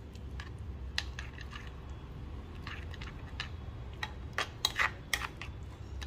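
Steel spoon stirring thick semolina and yogurt batter in a bowl, clinking and scraping against the bowl's sides in irregular sharp clicks, loudest a little after halfway.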